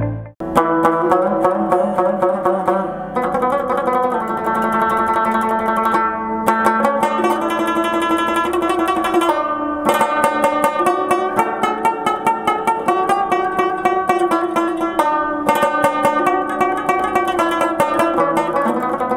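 Background music: a plucked string instrument picking a fast melody of many quick notes, starting just after a brief break.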